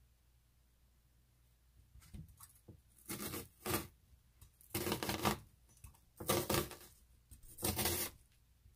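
Kitchen knife slicing through a peeled onion half on a plastic cutting mat: a series of short cuts, one every second or so, starting about two seconds in.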